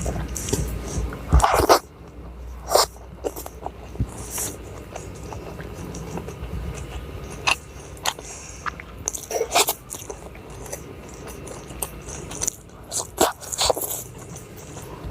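Close-miked eating sounds: a person biting and chewing crunchy food, with irregular crisp crunches and wet mouth clicks.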